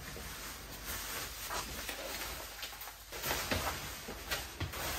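Cloth rustling with soft, irregular taps and knocks: trousers being handled and pulled on.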